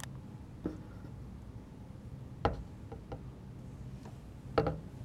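A few light knocks and taps over a low steady hum, one about two and a half seconds in and the loudest near the end.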